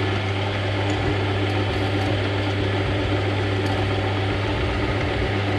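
Metal lathe running under a cut, its tool turning down a stainless steel shaft: a steady motor hum with the noise of the cut.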